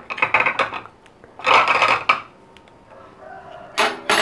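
Loud calls of a domestic fowl: two harsh calls in the first two seconds, then a softer pitched call near the end, broken by a couple of sharp clicks.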